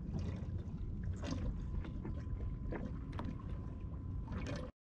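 Wind rumbling on the microphone over small waves lapping and slapping against a kayak's hull, with a few soft splashes. The sound cuts out briefly just before the end.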